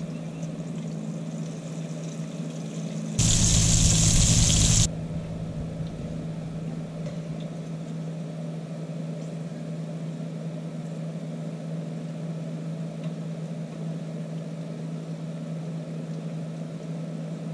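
Battered fish fillets deep-frying in a pot of hot grease on an outdoor burner: a steady low hum with faint sizzling. About three seconds in comes a loud burst of hissing that lasts under two seconds and stops abruptly.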